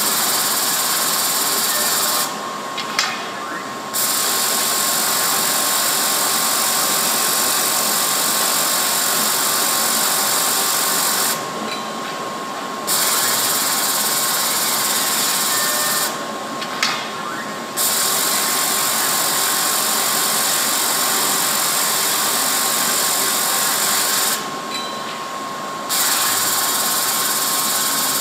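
R 242 automatic quilt binding machine sewing binding tape onto a quilt edge at high speed, a steady high whirring buzz. It stops four times for a second or two, with a few clicks in the pauses, then starts up again.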